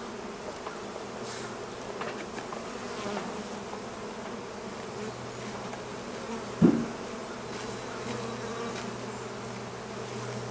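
Honeybees buzzing in a steady hum as many fly around the hive entrance, with one brief louder buzz about two-thirds of the way through.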